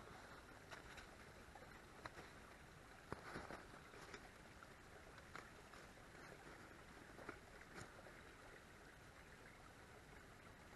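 Near silence: a faint steady hiss with a few soft, scattered clicks and rustles.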